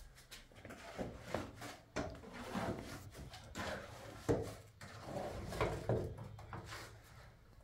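Irregular knocks, scrapes and rubbing from hand work at a window frame, with one sharper knock a little past halfway.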